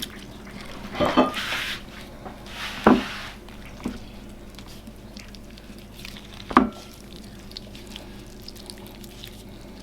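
Kitchen utensils handled during food preparation: a few separate knocks, the last one about six and a half seconds in ringing briefly, with two short rustling hisses in the first few seconds.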